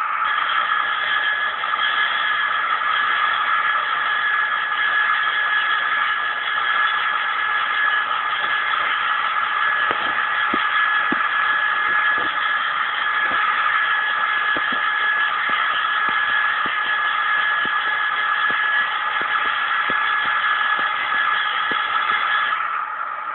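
Electric sharpening grinder running steadily: a constant whine with a rough hiss on top. The upper hiss drops away near the end while the motor keeps running.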